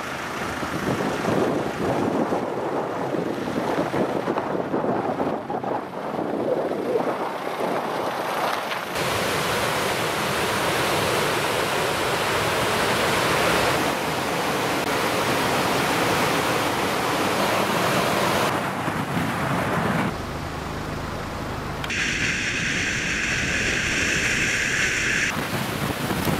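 Wind gusting on the microphone, then the steady, even rush of a fast river pouring over rocks in rapids. Near the end comes a car's steady road noise heard from inside the cabin.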